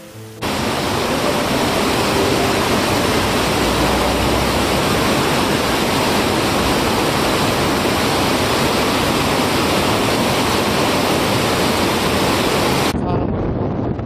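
Loud, steady rush of white water tumbling over rocks, starting abruptly just after the start and cutting off about a second before the end. Wind buffeting the microphone takes over from there.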